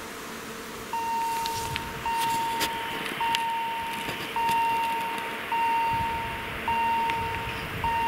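Level crossing warning signal chiming, starting about a second in and repeating about once every 1.1 s, each chime sounding sharply and fading a little, over a faint steady hum.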